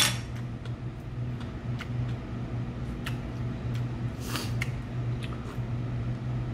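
Quiet eating sounds at a table: scattered faint clicks and a brief rustling hiss about four seconds in, over a steady low hum.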